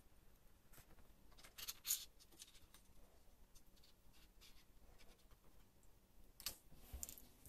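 Faint snips of scissors cutting a thin clear plastic sheet, loudest about two seconds in, with a few more faint handling sounds near the end.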